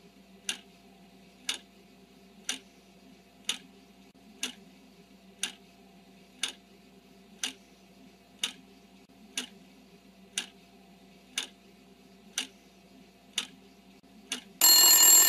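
Quiz countdown clock-tick sound effect: a sharp tick about once a second, fourteen or so in all, over a faint steady hum. Near the end a loud ringing alarm bell starts, the signal that the answer time is up.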